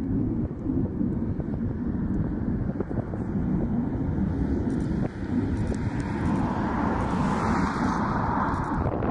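Fighter jet taking off, a steady, heavy rumble of jet engine noise. Over the last few seconds a higher hiss swells louder as the jet lifts off and climbs toward the listener.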